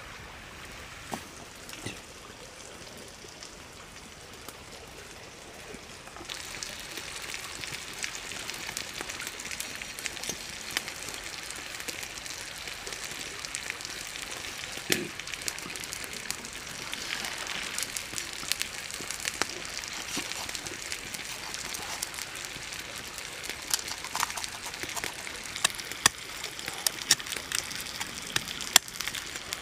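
Knife cutting into a whole raw chicken on a banana leaf: scattered sharp clicks and taps that come more often and louder near the end, over a steady hiss.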